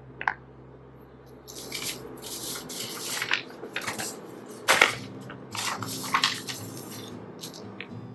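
Small 3D-printed plastic parts being handled and sorted: a click, then a string of rustles and light clatters, with one sharper clack about halfway through.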